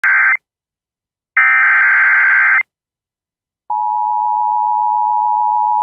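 Emergency Alert System tones: the end of one SAME digital header burst and a second full burst, a warbling data screech, then silence, and about 3.7 seconds in the steady two-tone EAS attention signal starts and holds.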